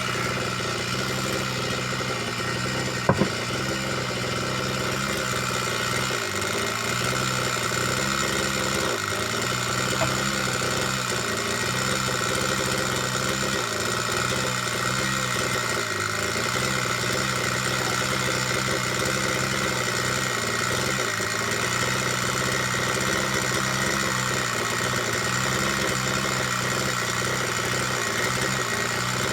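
Small petrol engine running at a steady, even speed throughout, with one sharp click about three seconds in.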